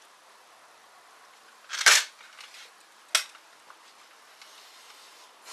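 Air rifle firing once, a sharp crack about two seconds in, followed a little over a second later by a shorter sharp click.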